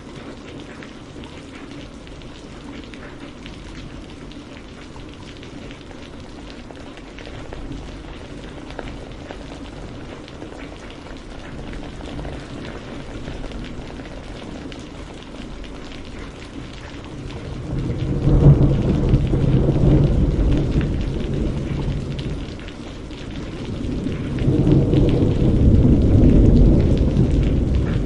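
Steady rain falling, with two long rolls of thunder: the first swells up about two-thirds of the way in and fades, the second builds near the end.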